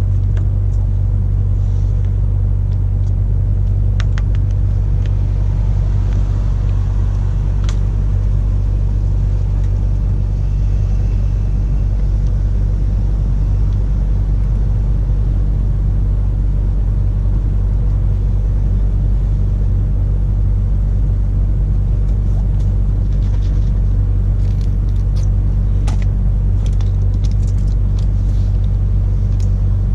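A steady low mechanical hum, like a motor or engine running, holds throughout. Over it come a few faint ticks and scratches of a scraper working spots off window glass, more of them near the end.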